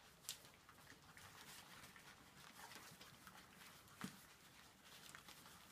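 Nearly five-week-old puppies eating together from a shared feeding dish: faint lapping, smacking and small clicks throughout, with a sharper knock near the start and another about four seconds in.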